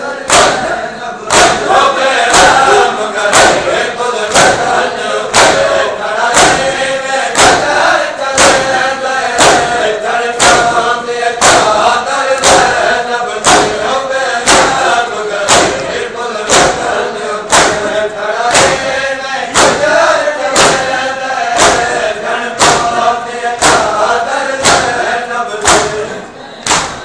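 Shia matam: a large crowd of men chanting a noha in unison while slapping their chests with open hands in a steady, even beat of a little more than one strike a second.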